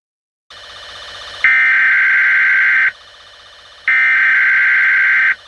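Emergency alert attention tone: two long, loud, steady electronic beeps of about a second and a half each, with a pause between. They are preceded by a faint hiss that starts about half a second in.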